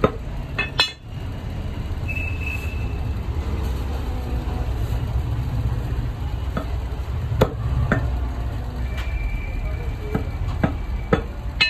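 Sharp knocks of a cleaver chopping chicken on a chopping block, a handful spread over the stretch, over a steady low rumble of street traffic.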